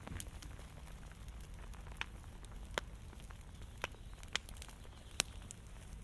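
Fire crackling, with several sharp pops over a low steady rumble.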